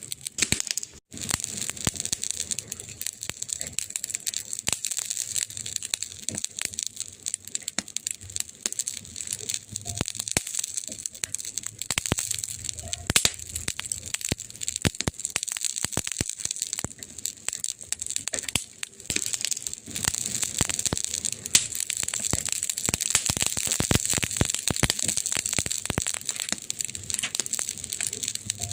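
Wood fire crackling in a fireplace: dense, irregular pops and snaps over a steady hiss. The sound cuts out briefly about a second in.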